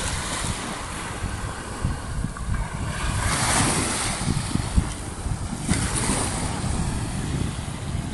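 Small waves washing up on a sandy beach, their hiss swelling twice, under a steady rumble of wind buffeting the phone's microphone.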